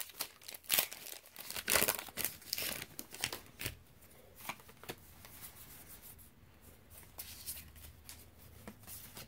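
Foil trading-card booster pack wrapper being crinkled and torn, a quick series of short rustles over the first three seconds or so. After that come quieter, scattered handling sounds.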